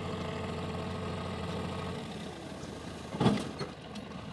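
Diesel engine of the soil-moving machinery running steadily, its hum dropping about two seconds in. A single loud knock follows about three seconds in.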